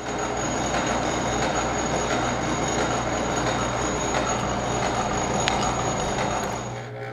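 Plastic uncapping fork scraping wax cappings off a honeycomb frame: a steady, crackly scratching with a faint high whine, dropping away near the end.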